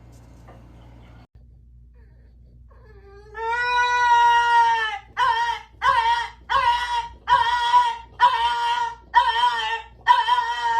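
A dog crying: after a few quiet seconds, one long drawn-out whine, then a string of short whining cries, about one and a half a second.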